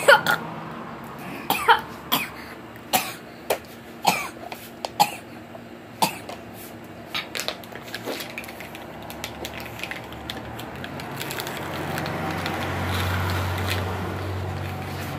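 A boy coughing and spluttering after choking on water gulped from a plastic bottle: short sharp coughs about every second through the first half, thinning out later. Near the end a low rumble swells and fades.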